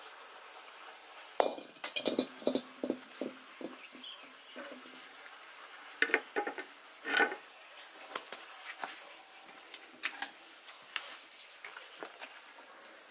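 Metal wok clanking and knocking against a concrete stove as it is lifted off the grill and set down, a sharp knock followed by a quick run of knocks. Later, lighter clinks and ticks of a ceramic plate and wooden chopsticks at the grill rack.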